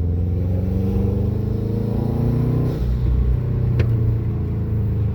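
Subaru Legacy driving, its engine running with the pitch shifting about three seconds in as the throttle or gear changes, and one sharp click a little under four seconds in.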